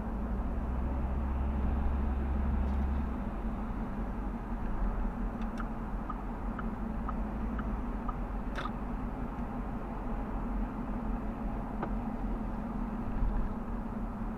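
A car driving: steady road and engine noise with a deep rumble that drops away about three seconds in, and a few faint clicks.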